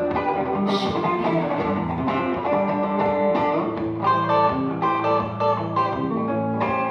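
Guitar playing an instrumental passage: picked notes over a steady low bass line, with no singing.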